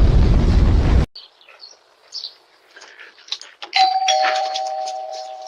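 A loud, low rumbling noise cuts off suddenly about a second in. Faint chirps and ticks follow, then a two-note ding-dong doorbell chime, the second note lower, ringing on and slowly fading.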